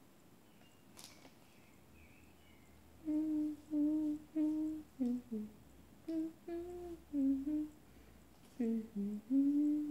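A woman humming a tune in short separate notes, starting about three seconds in after a few seconds of quiet room tone.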